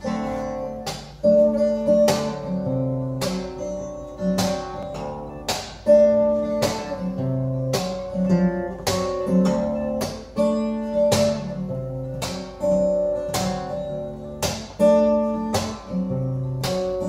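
Solo acoustic guitar playing a chord pattern at a steady, unhurried pulse, each chord ringing on, with no singing.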